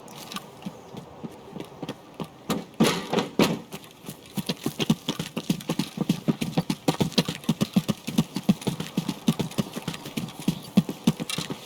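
A rapid series of thuds, scattered at first, then steady at about three or four a second from about four seconds in.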